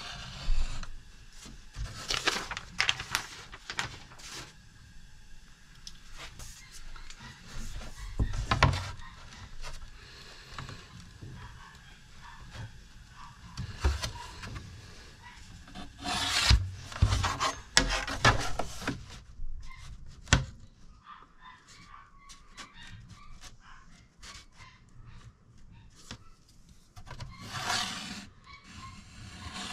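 Hand work on a hard material: irregular bursts of scraping and rubbing, with a few sharp knocks in between.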